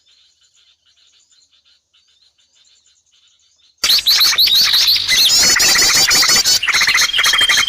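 A crowd of small birds chirping and calling over one another, used as a bird-luring sound. It is faint at first, then suddenly loud from just before four seconds in, with many overlapping calls, quick repeated sweeping notes and a held whistle near the end.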